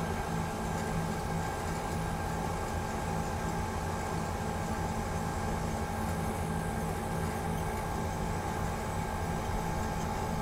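Outdoor unit of an 18,000 BTU Midea split air conditioner running on a Samsung rotary compressor: a steady hum with a few held tones.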